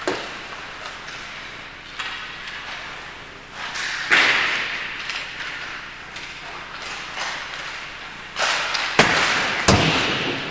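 A series of sharp knocks and thuds echoing in a large indoor hall. A few single hits come in the first half, then a cluster of three loud hits near the end.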